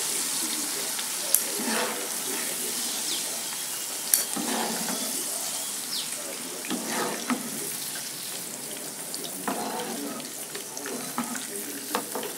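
Hot oil in a frying pan sizzling and crackling as fried shallots and chilies are lifted out with a wire-mesh strainer, with a light metal clink now and then as the strainer knocks against the metal skimmer. The sizzle fades slowly, the flame under the pan having been turned off.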